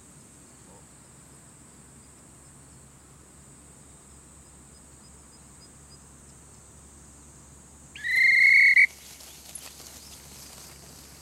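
A single loud whistle blast, a signal to the bird dog, lasting nearly a second about eight seconds in, sliding up briefly and then held on one note. Underneath it runs a steady high buzzing of insects.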